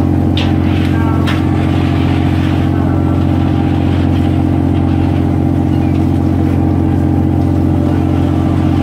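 Crab boat's engine running with a steady, even drone, with a couple of knocks from gear on deck in the first second and a half.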